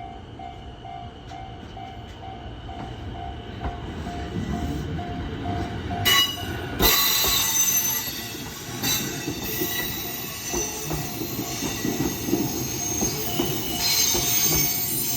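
Level crossing warning bell ringing in a steady, evenly pulsing beat as a train approaches. From about six seconds in, an electric train rolls in with its wheels squealing in several high, sustained tones over a low rumble as it curves into the depot, growing louder toward the end.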